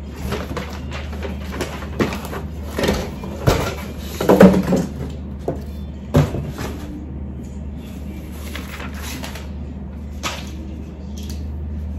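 Flat-pack furniture packaging being handled: paper and cardboard rustling and crinkling, with scattered knocks of panels and boxes, the loudest cluster about four seconds in.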